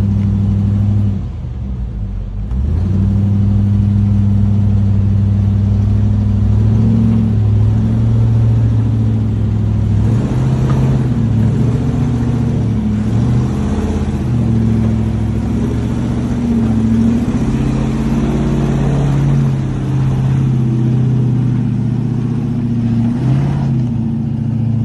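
Chevy K10 rock crawler's engine running and revving under load as it crawls up over rock, the pitch shifting up and down; it drops back briefly about a second in.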